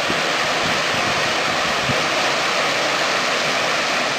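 Water rushing steadily over a weir: a loud, even rushing noise.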